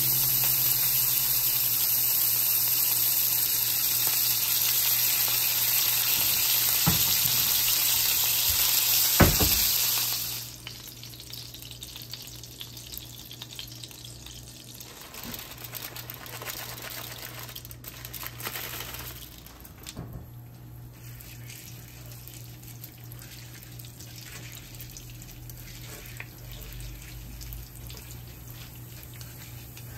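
Marinated Filipino barbecue chicken sizzling as it cooks: a loud, steady sizzle with a sharp knock about nine seconds in. After about ten seconds it drops suddenly to a much quieter crackle with scattered ticks.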